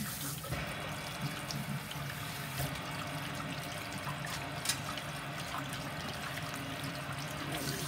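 Water running steadily from a sink sprayer hose into a kitchen sink while a dog is rinsed, with two faint clicks about two and a half and four and a half seconds in.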